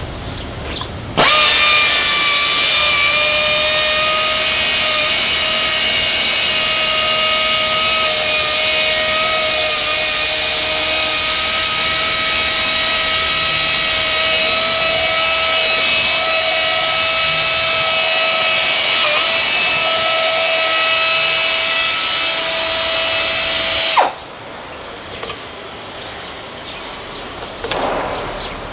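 Pneumatic wet polisher clamped in a GPW-A01 air beveling machine, running while it bevels the edge of a granite slab: a steady air-motor whine over a strong hiss of exhaust air. It starts abruptly about a second in and cuts off abruptly near the 24-second mark, leaving quieter clicks and handling noises.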